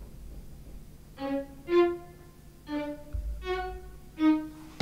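Playback of notes drawn in a DAW piano roll on a software instrument: five separate sustained notes at shifting pitches, one after another, a little under a second apart.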